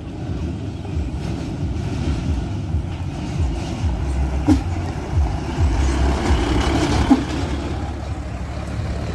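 Heavy tanker truck driving along a dirt road, a steady low engine rumble as it approaches and passes close by.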